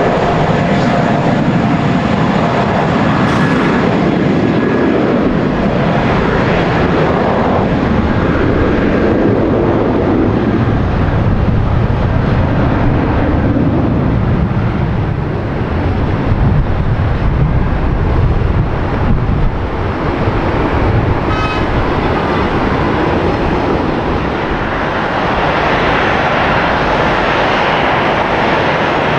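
Airliner engines at close range, loud throughout, with a slowly shifting whooshing tone as the aircraft moves past.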